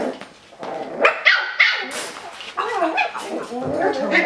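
Coton de Tulear puppies yipping and barking in play, a run of short high-pitched yips about a second in after a brief lull.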